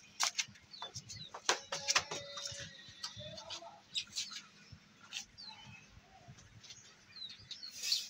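Wire bird cage clicking and rattling as it is handled, several sharp knocks in the first two seconds, with small cage birds giving short high chirps now and then.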